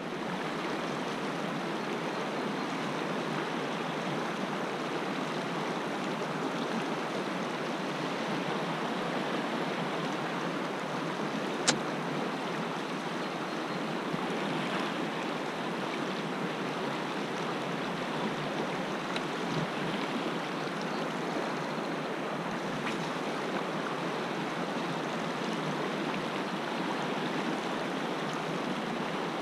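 Shallow river riffle rushing over rocks, a steady wash of running water, with one sharp click about a third of the way through.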